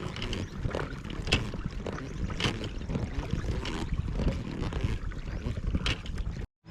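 Water splashing and knocking irregularly against a small boat's hull as it moves on a river, over a steady low rumble of wind on the microphone. The sound cuts off suddenly near the end.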